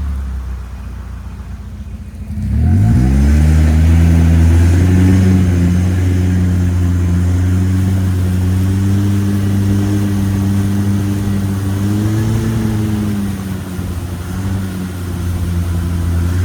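A boat's engine revving up about two and a half seconds in, then running steadily at high speed and easing off near the end.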